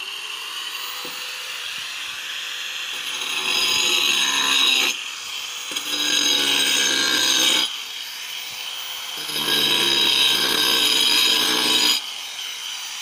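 Angle grinder cutting corrugated asbestos-cement slate (shifer). The grinder runs steadily and, three times, bites into the sheet: each time it grows louder with a lower, harsher grinding tone, then spins free again between cuts.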